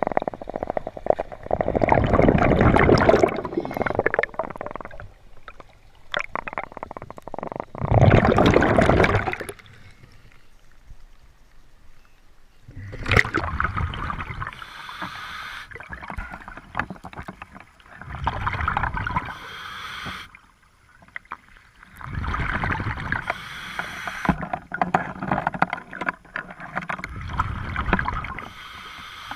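A scuba diver breathing through a regulator underwater: six bursts of bubbling exhaled air, one every four to five seconds, each lasting one to three seconds, with quieter gaps in between.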